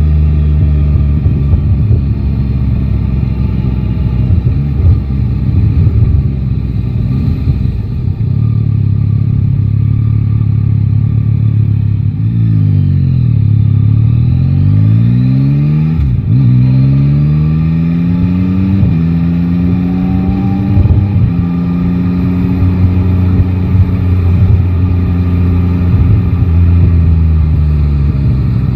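Yamaha Tracer 9 GT's three-cylinder engine on the move: it holds steady, then its pitch falls as the bike slows about halfway through. It then accelerates hard through several quick upshifts, its pitch rising in steps, and settles into a steady cruise. Wind buffets the microphone throughout.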